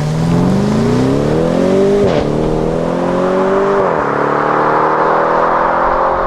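BMW M550i's 4.4-litre twin-turbo V8, fitted with an AC Schnitzer exhaust, accelerating. The revs climb, drop sharply at a quick upshift about two seconds in and again about four seconds in, then climb slowly through the rest.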